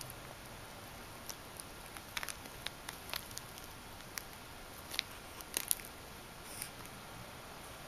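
Metal ball chain clicking and rattling as a kitten bats at it and bites it: scattered light, irregular clicks, the loudest few about five and a half seconds in.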